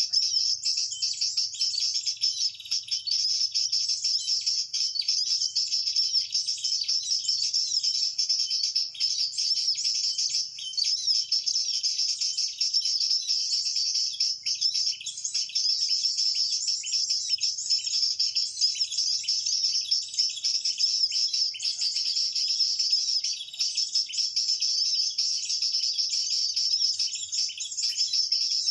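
Dense, unbroken high-pitched chirping of small birds, used as a lure call for trapping perenjak lumut.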